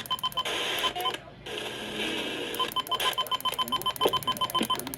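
Electronic alert beeper sounding a fast run of short beeps, several a second, each beep carrying a tone near 1 kHz and a higher one near 3 kHz. The beeping breaks off twice for stretches of hiss, about half a second in and again from about one and a half to two and a half seconds in.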